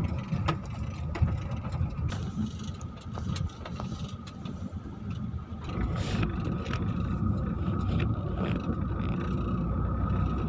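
A vehicle driving slowly over a rough sandy beach track: a steady low engine and tyre rumble with scattered knocks and rattles from the bumps, and a faint steady high tone underneath.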